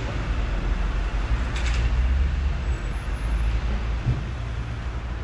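Road traffic noise: a steady low rumble of passing vehicles.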